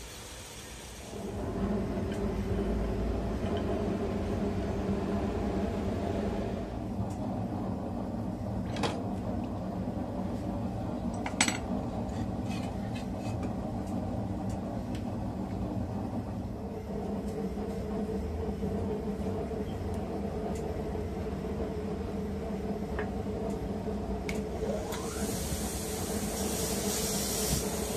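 Bench grinder motor running with a steady hum. A few sharp clicks come about a third of the way in, and near the end there is a hiss as steel is held against the spinning wheel.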